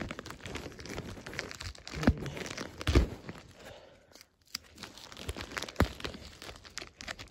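Packaging being opened by hand: irregular crinkling and tearing, with sharper crackles about two, three and six seconds in and a brief lull a little after four seconds.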